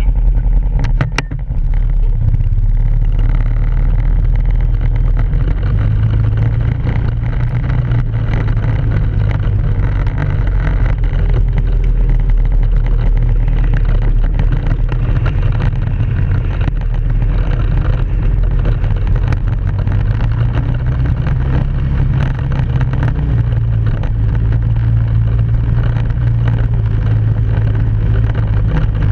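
ATV engine running steadily while riding along a trail, its note shifting slightly with throttle, with scattered small knocks and clatter.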